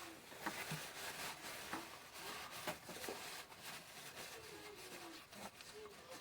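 Faint clicks and rubbing of hand tools working in a metal engine block, with a few faint falling squeaks.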